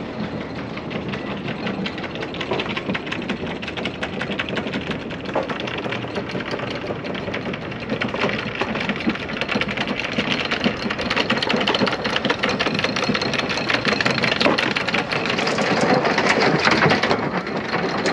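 Electric anchor windlass hauling in the anchor chain: a steady motor whine under rapid clicking of chain links running over the gypsy, growing louder towards the end.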